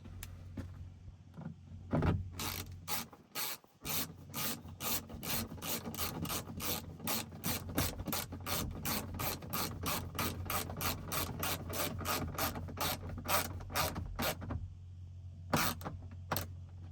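Ratchet wrench with a 7 mm socket on an extension driving a screw back in, its pawl clicking about three times a second for some twelve seconds. A couple of last clicks follow near the end as it is snugged down.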